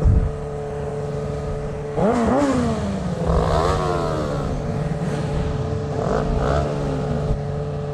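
Sport motorcycle engines in slow traffic: a steady idle hum throughout, with engines revving up and dropping back in short blips about two seconds in, again around three to four seconds in, and once more around six seconds in.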